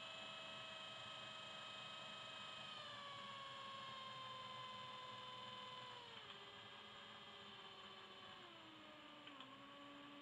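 Automotive starter motor spinning unloaded on a DC motor speed controller, a faint whine with several tones that steps down in pitch about 3 s in, about 6 s in and twice near the end as the speed knob is turned down.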